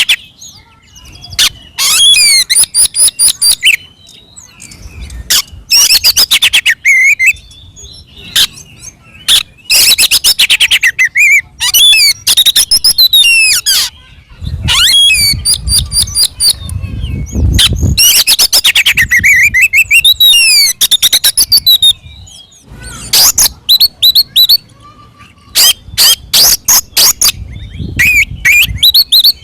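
Oriental magpie-robin (kacer) singing loudly in its aggressive fighting song: repeated bursts of rapid, sharp clicking notes and whistled gliding phrases, broken by short pauses.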